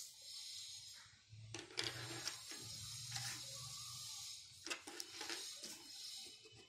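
Faint handling noise of a sheet of drawing paper being moved about, with a few short crackles and clicks.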